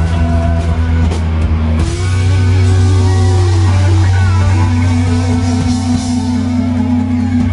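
Live rock band playing: two electric guitars, an electric bass and a drum kit, with long held bass and guitar notes from about two seconds in.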